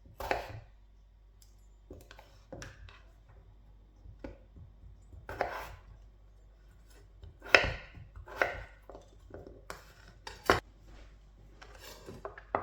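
Knife chopping food on a cutting board in a slow, uneven series of separate cuts, a few of them louder than the rest.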